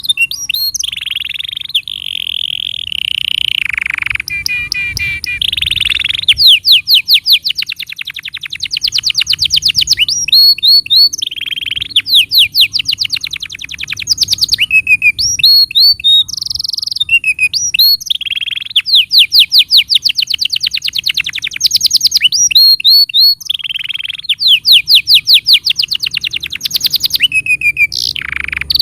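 Domestic canary singing a long, loud song made of fast trills: runs of the same short note repeated many times a second, switching to a new note type every one to three seconds. This is a training song played to get young or silent canaries to sing.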